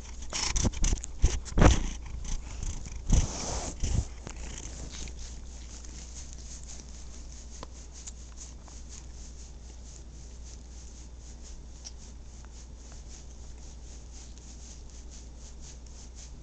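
Very fat house cat purring steadily, with a run of loud bumps and scuffs in the first four seconds.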